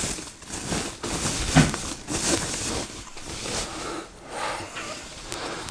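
Rustling and crinkling of a plastic protective wrap as a computer monitor is pulled out of it, with a few sharper crackles.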